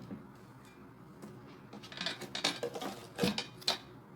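Metal parts of a meat mincer clinking and knocking as they are handled and fitted together. There are a few sharper knocks in the second half.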